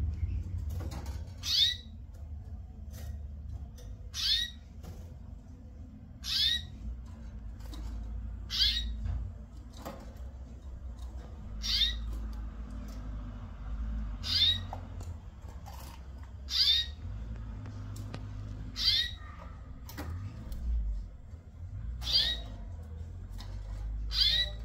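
Canary calling: a short, high call repeated about ten times, roughly every two to three seconds, over a steady low rumble.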